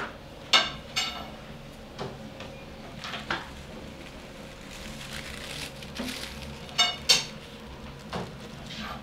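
Metal objects clanking and clinking about ten times, several strikes ringing briefly. The loudest come about half a second and one second in, and as a pair about seven seconds in. A faint steady hum runs underneath.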